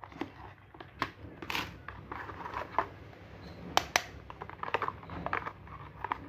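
Cardboard phone-box packaging and charger being handled: scattered sharp clicks and taps with brief rustling, the loudest a close pair of clicks about four seconds in.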